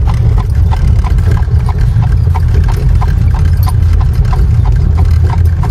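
A buggy horse's hooves clip-clopping in a steady trot, about three to four hoofbeats a second, over a loud, steady low rumble.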